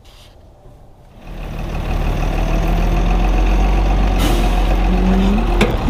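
M35A2 deuce-and-a-half truck's multifuel diesel engine running loud and steady with a deep rumble as the truck drives, cutting in abruptly about a second in. A short hiss comes about four seconds in, the pitch rises briefly just after five seconds, and there is a sharp click near the end.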